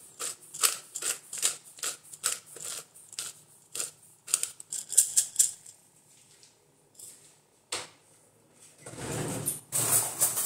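Pepper grinder being twisted over a tub of chicken, giving a steady run of sharp clicks about three a second that stops after five seconds or so. A rustling noise near the end.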